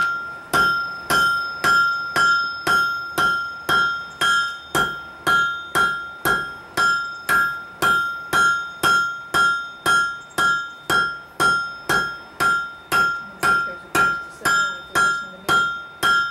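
Hand hammer striking a red-hot steel bar on an anvil in a steady rhythm, about two blows a second, each blow leaving the anvil ringing with a clear bell-like tone. The smith is knocking the corners off a square stem to round it.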